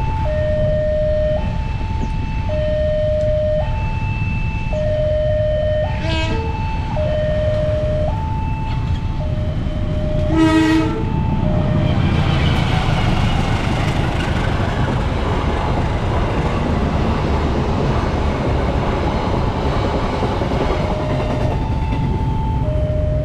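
Railway level-crossing warning siren sounding two alternating tones, switching about every second and a half. A train horn gives a short blast about six seconds in and a louder one about ten seconds in. Then the train passes with a dense rumble and wheel noise that drowns the siren until it comes back near the end.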